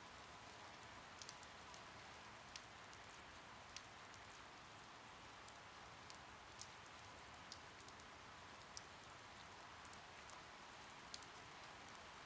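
Faint rain: a steady soft hiss with scattered drops ticking irregularly.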